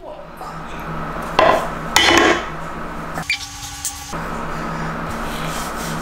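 Rubbing and scraping over a steady hum, with two louder scrapes in the first couple of seconds.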